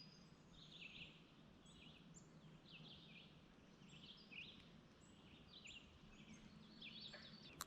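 Faint songbird chirping: short high chirps repeated every second or so over a quiet background.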